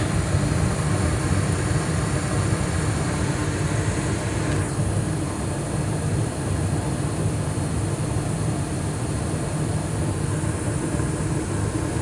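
Carrier Infinity 80 two-stage natural-gas furnace running in high-stage heat: a steady low rumble and rush of air from the lit burners and the variable-speed ECM blower. The higher hiss eases slightly about five seconds in.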